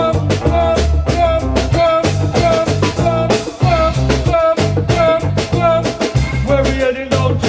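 Live reggae band playing, with a bouncing bass line, drum kit and a melody line over it.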